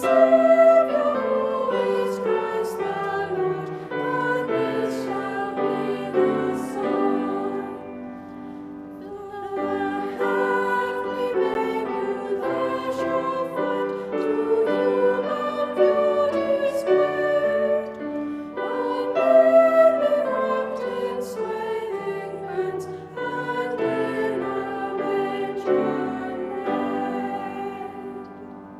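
High-voiced choristers singing with piano accompaniment, easing off briefly partway through and fading at the end.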